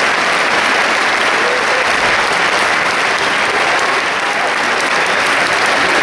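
Large crowd applauding steadily, a dense even clatter of many hands.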